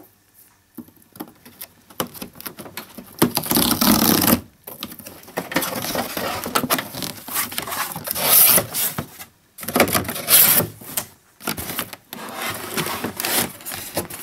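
Cardboard box being torn open along its perforated tear strip, then its flaps and inner cardboard pulled back by hand: irregular bursts of tearing, scraping and rubbing cardboard.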